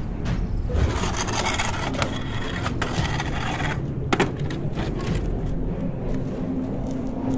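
A wooden chair scrapes across a concrete floor for about three seconds, then a sharp knock follows. A low rumble runs underneath.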